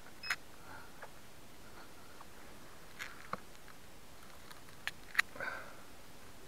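Low steady hiss with a few light clicks and taps from a crashed foam RC plane being handled, and a brief high beep near the start. The motor is not running.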